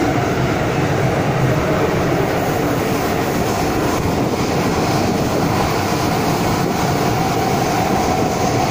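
Inside a Hong Kong MTR M-Train (modernised Metro-Cammell EMU) carriage on the move: the steady running noise of the train, with a faint whine over the rumble.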